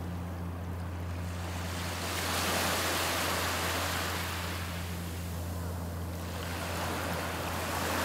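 Small ocean waves breaking and washing up a sandy beach. The surf swells about two seconds in and again near the end, over a steady low hum.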